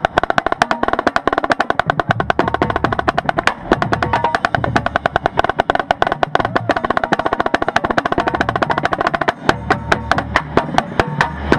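Marching snare drum played right at the microphone: dense, fast rolls and rudiment patterns, changing at about nine and a half seconds in to separate, evenly spaced hits, a few a second.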